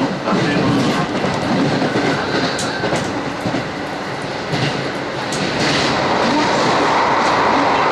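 Electric commuter train running at speed, heard from inside the passenger car: steady wheel-and-rail noise with a light clickety-clack from the rail joints. A little over five seconds in the noise gets louder and steadier as the train enters a tunnel.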